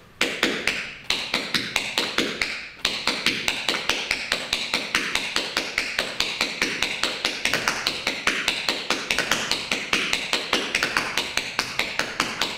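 Metal taps on tap shoes striking the floor in a fast, continuous run of shuffles, hops and steps: tap-dance half-break combinations, with short gaps about one and three seconds in.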